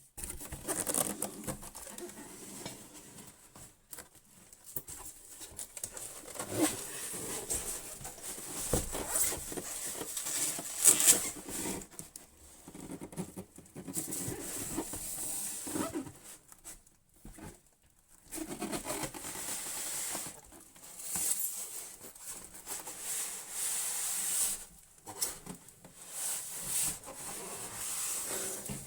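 Irregular rustling and crinkling of packaging being handled during unboxing, with scattered light clicks and knocks and a few short pauses.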